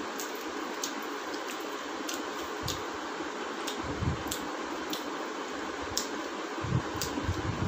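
People eating curry and luchi by hand: short, sharp mouth clicks and smacks of chewing, about one a second, over a steady background hiss, with a few low thumps near the end.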